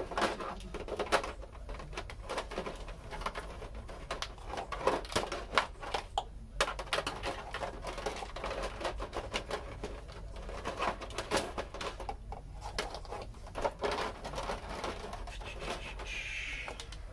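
Irregular clicks, knocks and rustling of objects being handled.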